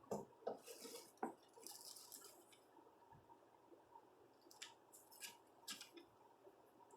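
Faint rustling and crinkling of a taped, wrapped bundle of clothing being handled, coming in several short patches with a few soft clicks.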